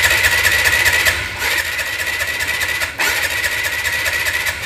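Motorcycle electric starter cranking the engine with the spark plug out and a compression gauge in the plug hole, so the engine turns over without firing during a compression test. The cranking breaks briefly about a second in and again near three seconds.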